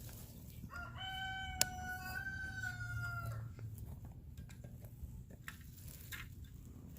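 A rooster crowing once: one long call of about two and a half seconds, starting about a second in. A single sharp knock falls partway through it.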